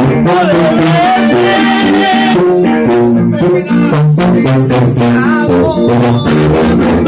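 A small band playing live in a room: a sousaphone carries the bass line while a button accordion plays the melody over a plucked string instrument.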